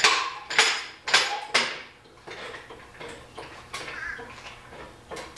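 Four sharp metal clanks about half a second apart, then lighter clicks and knocks.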